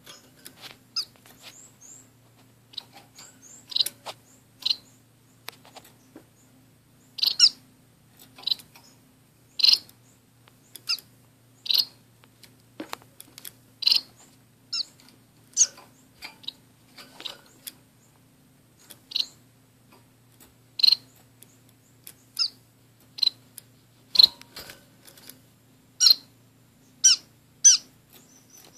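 Small pet finches, orange-cheeked waxbills and a society finch, giving short, high single chirps at irregular intervals, about one every second or two.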